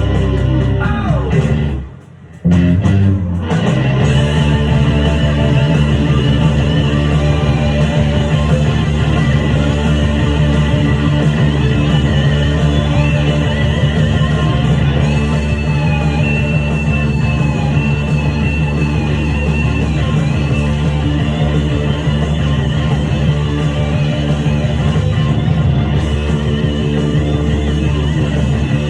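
Hard rock song with electric guitar and bass guitar playing. The band drops out for a moment about two seconds in, then comes back in.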